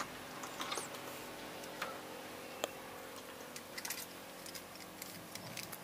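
Faint, scattered small clicks and taps from handling a plastic turn-signal bulb socket and its wires.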